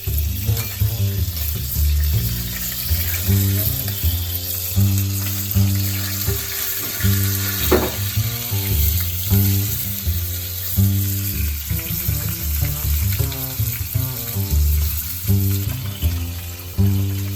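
Food frying with a steady sizzle, under background music.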